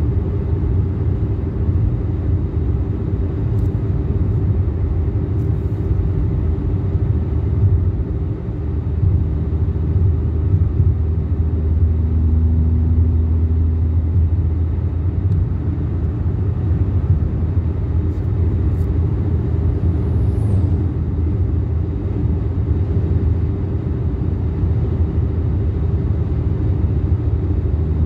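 2010 Toyota Yaris with a DIY cold air intake, heard from inside the cabin at a steady cruise: a low, even engine and intake drone mixed with tyre and road rumble.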